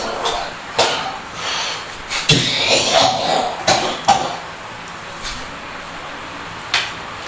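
A person coughing hard and hacking, a run of several coughs in the first four seconds and one more near the end, with throat clearing between.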